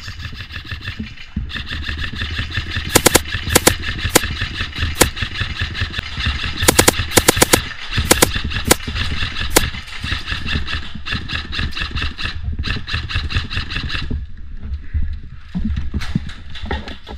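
Airsoft gunfire: an electric airsoft gun firing long full-auto strings, a steady mechanical buzz, with sharp cracks coming in two clusters. It dies away about three seconds before the end.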